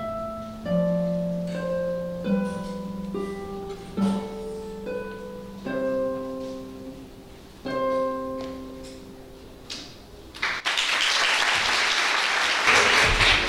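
Harp played solo: plucked notes and chords, each ringing and dying away, until the piece ends about ten and a half seconds in. Audience applause then breaks out and is the loudest sound to the end.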